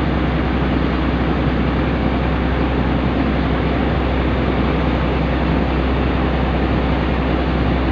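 Strong wind blowing across the microphone: a loud, steady rushing noise, heaviest in the low end.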